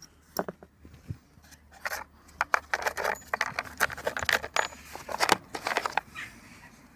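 Hard small objects clinking and clacking as hand tools are handled and set down, a few at first and then a busy run, with a couple of short metallic rings. It dies away about a second before the end.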